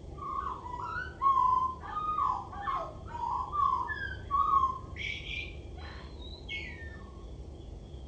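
Male common blackbird singing: a run of low, fluting whistled phrases, then a higher, squeaky twittering ending about five seconds in and again a second later.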